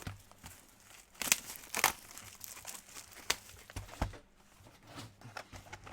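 Trading-card pack wrappers crinkling and tearing as the packs of a card box are opened, in scattered short crackles with a few sharper ones.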